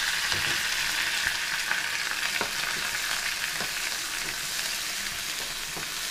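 Sliced onions, curry leaves and garlic sizzling in hot oil in a nonstick kadai, the sizzle slowly dying down, with scattered light taps and scrapes of a wooden spatula stirring them.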